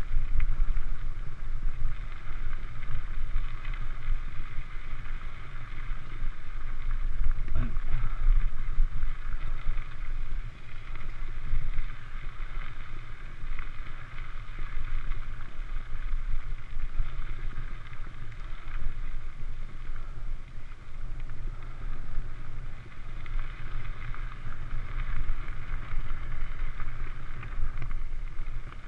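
Mountain bike riding down a gravel trail, picked up on a GoPro: a steady rush of tyre rumble and wind noise on the camera's microphone, with one short knock from a bump about seven and a half seconds in.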